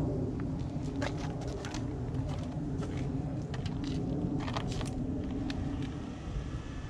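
Steady low hum of a running vehicle engine, with scattered light clicks and taps through it.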